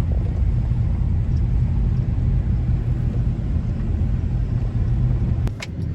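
Vehicle driving slowly over farm ground, a steady low rumble of engine and tyres. Near the end a couple of sharp clicks, and the rumble drops.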